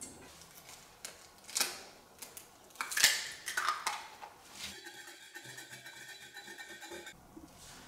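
A few light knocks, then an egg cracked sharply against a ceramic plate about three seconds in, with the shell crackling as it is pulled apart. From about five seconds a fork beats the egg on the plate, clicking quickly and evenly against the china for about two seconds.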